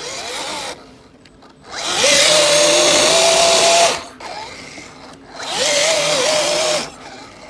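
Electric motor and drivetrain of an RC scale crawler on a 3S battery whining under throttle as the truck struggles in deep snow. Three bursts: a short one at the start, then a louder one of about two seconds and another of about a second near the end, each climbing quickly in pitch and then holding a steady high whine.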